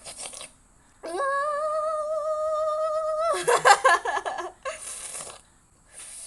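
A man's voice lets out one long, steady, high-pitched wail of about two seconds, in pain from the chilli burn, then breaks into a short, loud, ragged outburst, with hissing breaths before and after.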